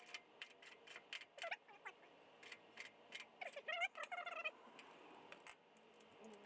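Faint, irregular clicks and ticks of hand tools working on metal, with short warbling animal calls about one and a half seconds in and again around four seconds in.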